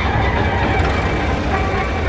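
Heavy diesel engine of an excavator working, a steady low rumble, with faint higher tones over it.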